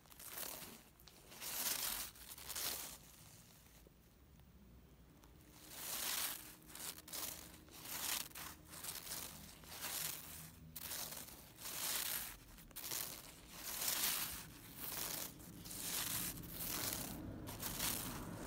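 A cat wand toy swished and brushed about over artificial turf, giving short rustles roughly once a second, with a quieter gap a few seconds in.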